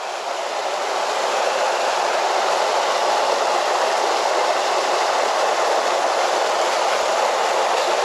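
Small waterfall: water pouring down a rock chute and splashing, a steady rushing that grows a little louder over the first second and then holds even.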